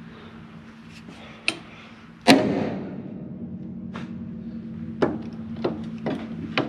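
A loud slam a little over two seconds in, ringing briefly, with several lighter knocks and clanks before and after it, over a steady low hum.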